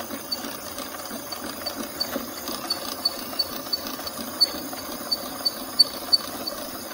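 Motorised drain-cleaning machine running, its cable turning in the drain line, with a steady mechanical noise and a regular clicking about three times a second that grows louder in the second half.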